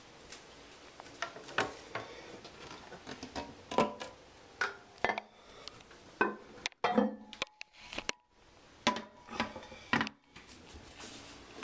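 Irregular sharp clinks and knocks of porcelain, the toilet tank lid being handled on the ceramic tank, about a dozen separate strikes with short rings.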